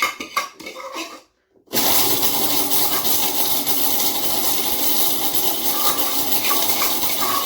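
Electric kitchen mixer grinder (mixie) switched on about two seconds in and running steadily at speed as it grinds in its small jar, after a few clinks of the jar and lid.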